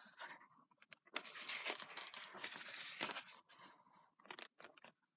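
Faint rustling and crinkling handling noise, like paper or the recording device being moved about, running for a couple of seconds with a few sharp clicks, then more scattered clicks near the end.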